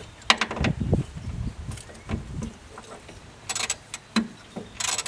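Irregular metallic clicks, clinks and knocks from hand work on the skid steer's wiring and steel frame, with a few sharper ringing clinks about three and a half and five seconds in.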